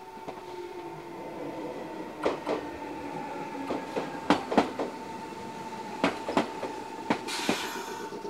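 Meitetsu 6800 series electric train pulling in past at close range, its motor whine falling in pitch as it slows, its wheels clacking sharply over rail joints and points. A short burst of air hiss comes near the end.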